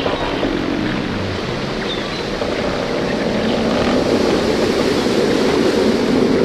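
A steady rumbling noise, like a motor drone or wind, with no clear pitch; it dips slightly about two seconds in and rises a little toward the end.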